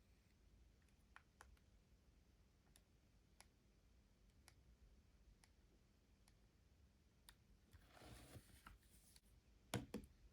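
Faint, scattered clicks of a Nokia 7250i's keypad buttons being pressed, at irregular intervals. There is a brief rustle of handling about eight seconds in and two louder clicks near the end.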